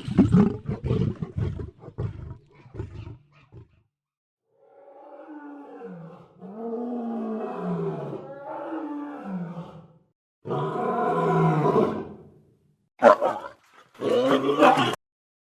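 Lion growling: a string of short, choppy growls, then after a brief pause one long growl of about five seconds that dips and rises in pitch, followed by three shorter growls, the last cut off abruptly.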